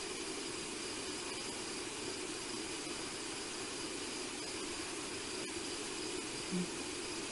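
Steady night-time outdoor ambience through a wildlife camera's microphone: an even hiss with faint, steady insect chirring high up. A brief low sound about six and a half seconds in.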